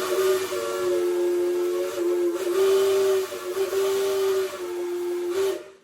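A 3-inch Lonergan three-chime steam whistle blowing on 30-45 psi of steam: a loud chord of several notes over a steam hiss. The pitch dips briefly a few times, and the whistle cuts off suddenly shortly before the end.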